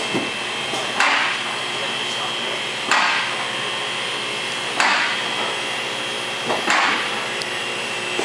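Four evenly spaced heavy knocks, about two seconds apart, over a steady workshop background hum with a faint high whine.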